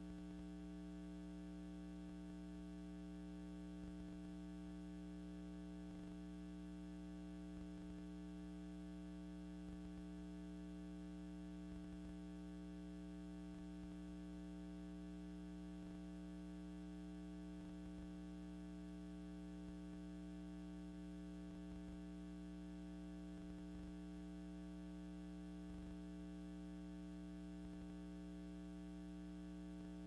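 A steady electrical hum made of a few constant tones, unchanging throughout, with faint occasional ticks.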